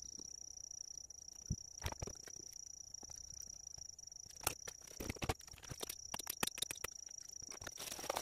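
Scattered clicks and light knocks from a small speaker and tools being handled and set down on a rubber-matted workbench, thicker in the second half and loudest near the end. A steady thin high-pitched tone runs underneath throughout.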